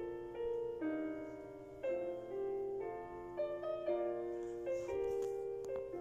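Background piano music, notes and chords changing about once a second.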